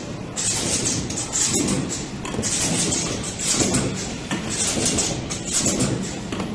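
An automatic bottle screen printing machine running through its print cycle, repeating about once a second with short hissing bursts over a mechanical rumble and clatter.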